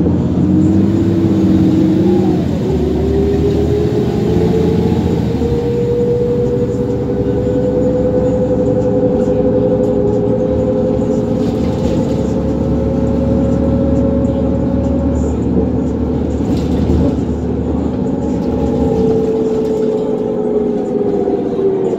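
2004 New Flyer D40LF transit bus, with a Cummins ISL diesel and ZF Ecomat II automatic transmission, heard from inside while under way. A steady drivetrain rumble carries a whine that rises in pitch over the first few seconds as the bus gathers speed, holds steady while it cruises, and eases slightly near the end.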